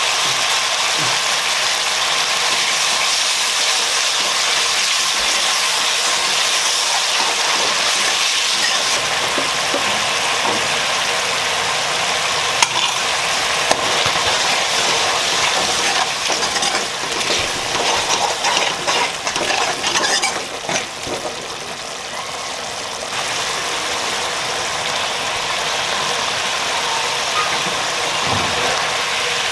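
Spiced fish-curry gravy sizzling and bubbling in an aluminium kadai as a steady hiss. A metal ladle stirs it and clinks sharply on the pan twice about halfway through.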